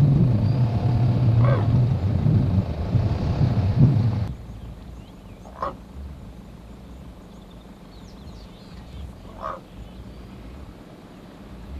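A 4x4's engine idling with a low rumble that stops abruptly about four seconds in. After that, short single animal calls come every few seconds over quiet bush, with a few faint high chirps.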